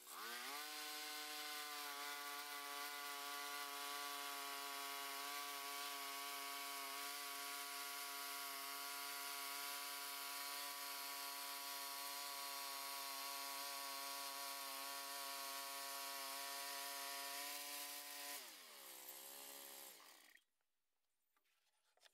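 Bandsaw mill sawing through a hardwood burl log: the mill's motor and blade run under load with a steady whine. The pitch rises as it picks up at the start, holds for about 18 seconds, then drops, and the sound cuts off abruptly about 20 seconds in.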